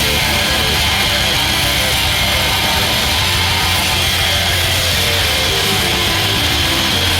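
Rock background music with electric guitar, with a steady high hiss running under it.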